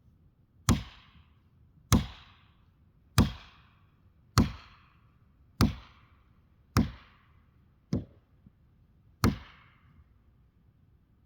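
An axe chopping into a tree trunk: eight sharp strikes at an even pace of about one every 1.2 seconds, each followed by a short echo. The seventh strike is lighter.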